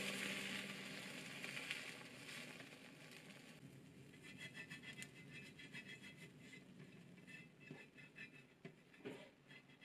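Faint sizzling and scraping in a square tamagoyaki pan: chopsticks roll the egg omelette, then oil is brushed over the hot pan. A few soft knocks come near the end.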